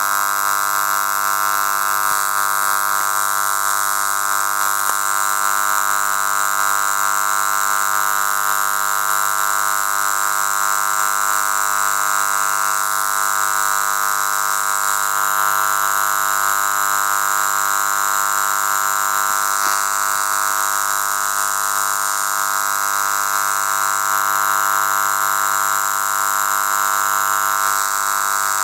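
Steady buzzing tone with many even overtones, unchanging throughout, carried by an FM broadcast on 93.7 MHz received on a phone's FM radio. It is the station's sound fault.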